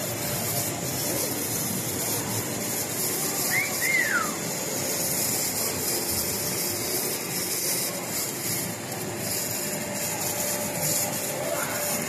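Eluxgo EC25 vacuum cleaner running at a steady level: an even suction rush with a faint high motor whine.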